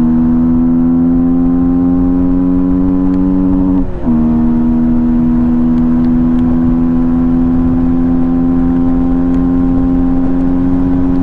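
Yamaha MT-15's 155 cc single-cylinder engine, breathing through an open air filter, pulling under acceleration with its pitch slowly rising. About four seconds in the note dips briefly, as at a gear change, then climbs steadily again.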